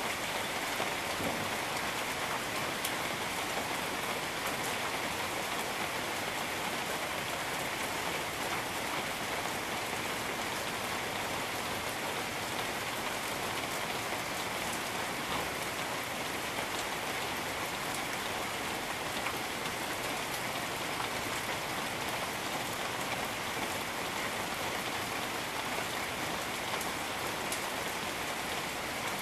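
Steady rain falling on jungle foliage and surfaces, a constant hiss with many fine drop ticks.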